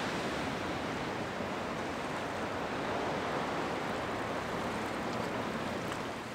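Sea water washing and lapping against a concrete seawall: a steady wash of small waves, easing off near the end.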